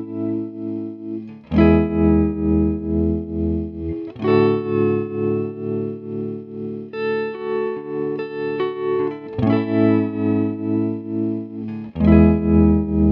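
Electric guitar chords played through a Vox AC15 valve amp, now fitted with a Celestion Alnico Blue speaker. Each chord is held with a steady pulse in volume, and the chords change every few seconds.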